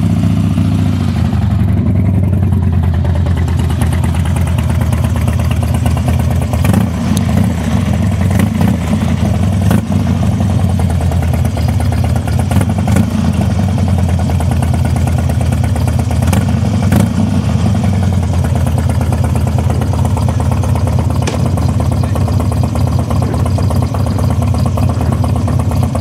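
Harley-Davidson Super Glide's air-cooled V-twin running at low revs just after being started. The bike pulls away slowly by the end.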